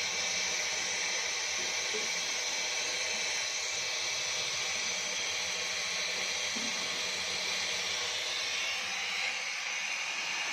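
Steam hissing steadily around a steam-operated mawa (khoya) making kettle.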